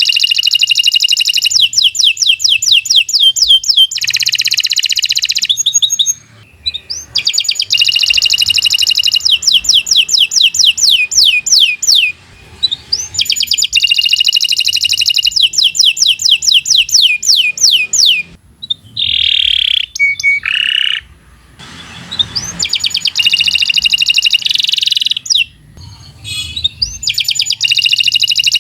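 Domestic canary singing long, loud rolls of rapid repeated notes, in phrases several seconds long with short breaks between them. About two-thirds of the way through comes a brief lower phrase of sliding notes.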